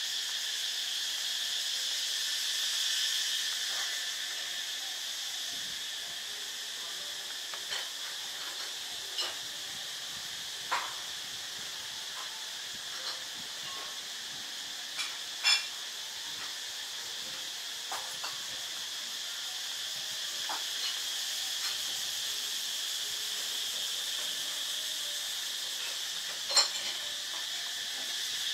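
Steady high-pitched insect chorus of crickets or cicadas, in several layered bands. A few short sharp clicks or taps are scattered through it, the loudest about halfway through and near the end.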